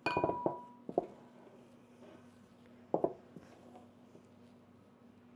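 Metal rolling pin with thickness rings rolling pie dough on a silicone pastry mat: a few knocks and clacks as it starts, another at about one second and a sharp one about three seconds in, with soft rolling between.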